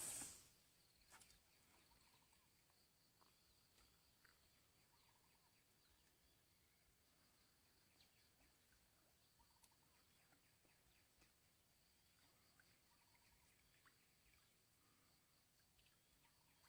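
Near silence: a faint steady high-pitched insect buzz with a few faint short chirps and clicks, after a brief noise right at the start.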